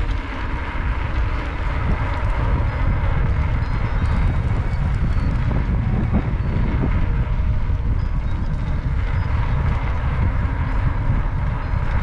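Steady wind noise buffeting the microphone, with a heavy low rumble and no clear rhythm, as on a camera carried while riding.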